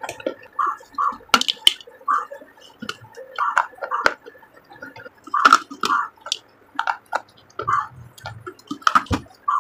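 Baked terracotta clay from a clay gullak being bitten and chewed close to the microphone: irregular crunching and crackling with a few louder sharp cracks.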